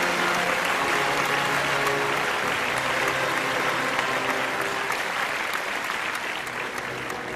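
Audience applauding, with music playing underneath; the clapping fades near the end.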